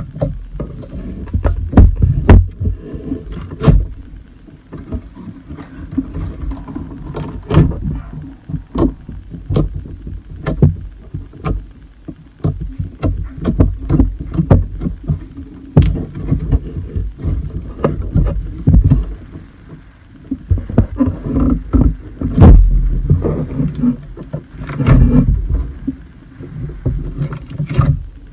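Slime being squished and stretched by hand close to the microphone: an irregular run of sharp clicks and pops over low thuds.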